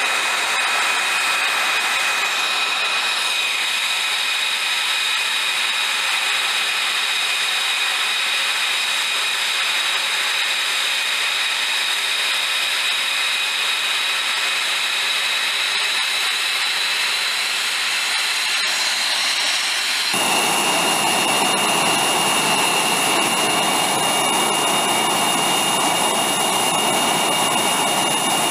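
F-22 Raptor's twin F119 turbofan engines running steadily: a high turbine whine over a rushing noise. About two-thirds of the way through the sound cuts abruptly to a fuller, deeper rush with a different whine.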